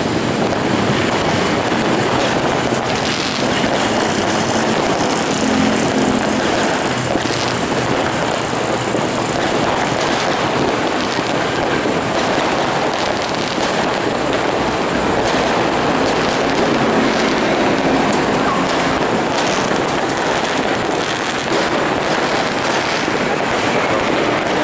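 New Year fireworks crackling and popping in a dense, continuous barrage, with a faint horn tone underneath at times.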